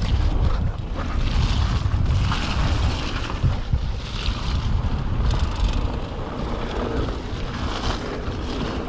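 Wind rushing over the microphone of the rider's point-of-view camera, over the rolling rumble of mountain-bike tyres on a wet, muddy dirt trail at speed.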